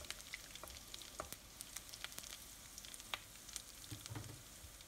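Chopped onion sizzling in hot oil in a pan, a faint steady hiss with scattered small crackles, as it is sautéed and stirred.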